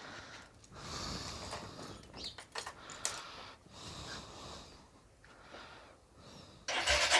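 Soft, irregular shuffling and rustling noises with short pauses, then near the end a sudden louder noise as a start attempt begins on a 2006 Honda Titan 150 motorcycle.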